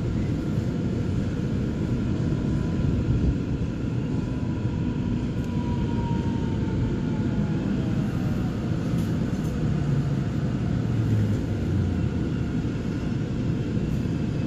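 Steady low rumble of a Gyeongui–Jungang Line electric commuter train running, heard from inside the carriage, with a faint falling whine about halfway through.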